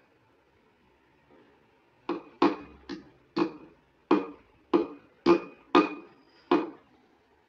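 A small metal-ended makeup tin knocked repeatedly on a wooden cabinet top. About ten sharp knocks, roughly two a second, start about two seconds in, each with a short metallic ring.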